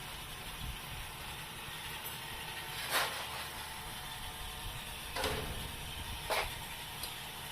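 Handheld circular saw, converted into a bench metal-cutting saw, running steadily, with three short, louder bursts a second or two apart.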